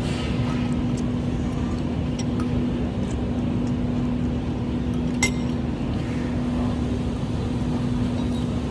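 Steady low rumble of a moving car, with a constant hum running under it and a few faint clicks.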